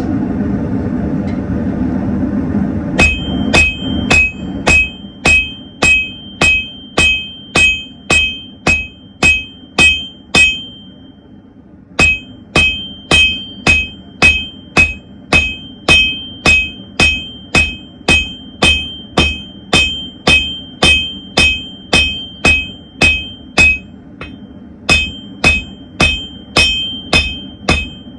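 Hand hammer striking hot steel on an anvil, about two blows a second, each with a bright, high ring. The hammering starts about three seconds in, after a steady rushing noise, and stops twice for a moment before going on.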